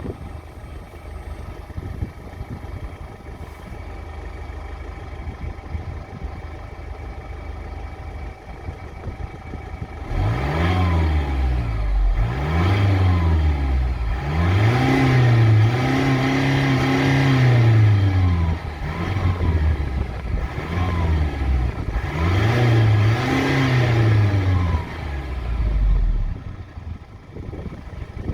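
Mercedes-Benz E220d's four-cylinder diesel engine idling, then revved up and down about ten seconds in, in a series of blips with one rev held for several seconds, before dropping back to idle near the end.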